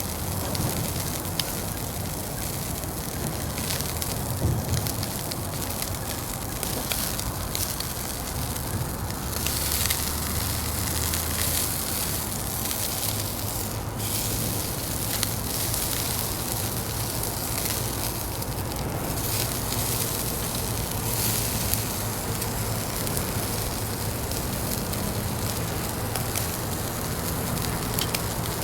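Fire crackling in a Uniflame Fire Grill fire pit: a steady hiss with frequent scattered pops, and a faint low hum underneath.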